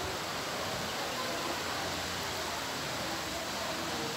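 Steady, even rushing of wind and rain as a storm comes in.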